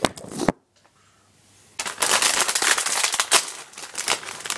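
A knock as the camera is set down, a second of near silence, then a crisp packet crinkling and crackling steadily as it is handled and opened.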